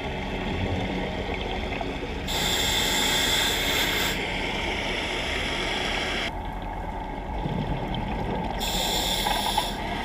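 Underwater ambience picked up through a dive camera's housing: a steady rush of water noise, with two louder hissing bursts of a scuba diver's exhaled regulator bubbles, one at about two seconds in and a shorter one near the end.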